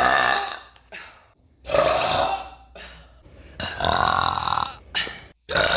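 A woman burping loudly, over and over. Four long burps come about every one and a half to two seconds, with short ones in between.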